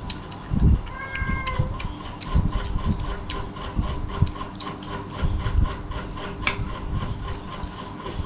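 A small mechanism ticking or rasping rapidly and evenly, about five clicks a second, over a faint steady whine, with a few dull low thumps.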